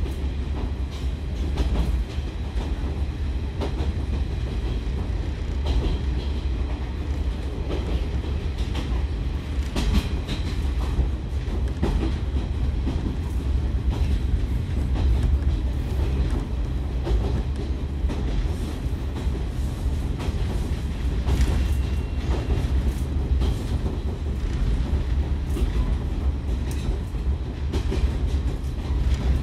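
KiHa 147 diesel railcar running along the line, heard from inside the car: a steady heavy low rumble from engine and running gear, with the wheels clicking over rail joints at irregular intervals.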